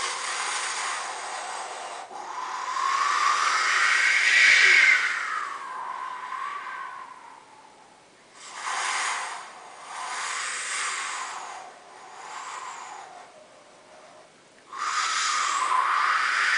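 A person imitating wind with the mouth: breathy whooshing gusts with a whistling pitch that rises and falls. One long gust swells to a peak about four seconds in, then three shorter gusts follow with brief pauses, and another swell begins near the end.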